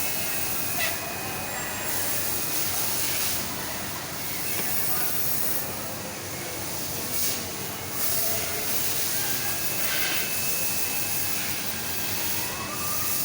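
Conveyor machine running, giving a steady hissing mechanical noise with faint whining tones.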